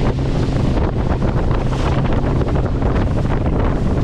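Strong wind buffeting the microphone on a boat at sea, over a steady low hum.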